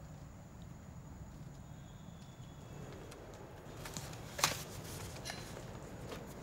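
Faint steady room hum, then about four and a half seconds in a sharp knock of cardboard product boxes being grabbed off a wooden counter, followed by a few lighter clicks and taps.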